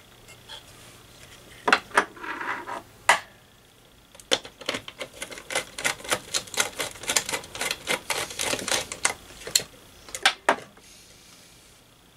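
Hands working small parts and wire leads on the metal chassis of a tube tester: scattered sharp clicks and taps, then a fast run of clicking and rattling from about four seconds in until nearly ten, and a couple more clicks after that.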